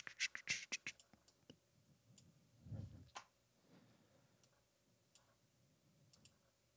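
Soft computer clicks, a quick run of them in the first second and a few scattered ones after, against near silence, as the editing software is worked. A faint low thump comes about three seconds in.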